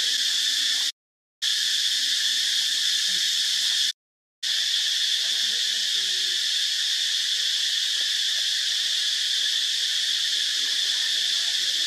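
A dense, steady, high-pitched chorus of insects, broken twice by brief total dropouts, about a second in and about four seconds in.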